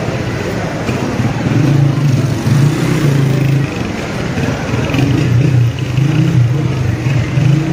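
Motorcycle engines running past, a steady low drone that swells and eases several times.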